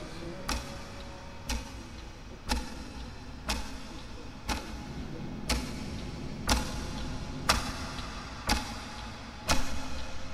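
Clock ticking steadily, one sharp tick each second, over a low background hum.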